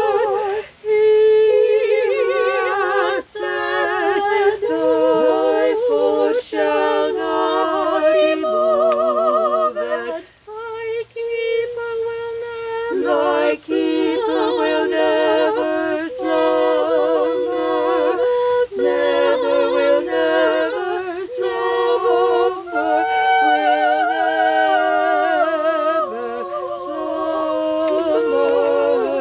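Small vocal group singing a cappella in harmony: several voices hold long notes with vibrato, in phrases with brief pauses between them.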